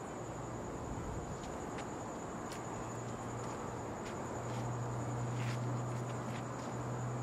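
Night ambience: a steady high-pitched insect trill over hiss. A low hum grows louder about halfway through, and there are a few faint clicks.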